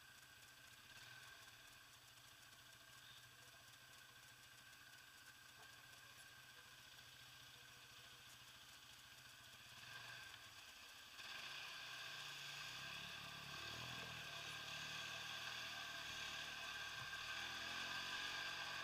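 Quad bike engine running at low speed, faint and steady. About eleven seconds in, a loud hiss of water splashing and spraying sets in as the quad ploughs through a flooded track, and the engine revs up and down under load.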